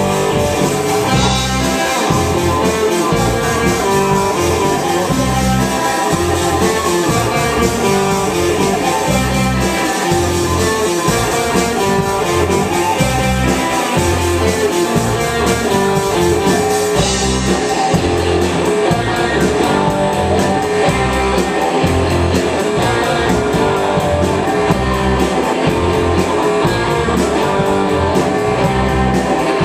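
Live rock band playing, electric guitar to the fore over bass guitar and drum kit.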